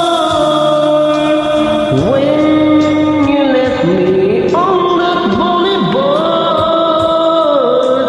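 Karaoke backing track playing an instrumental break: sustained chords and a melody that change about every two seconds.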